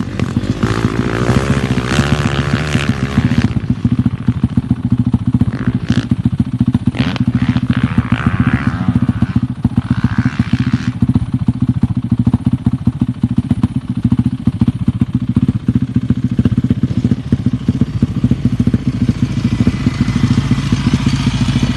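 Honda CRF450 dirt bike's single-cylinder four-stroke engine, revving hard as the bike pulls away for the first few seconds, with revs rising and falling in bursts, then running at a steady even note through the second half.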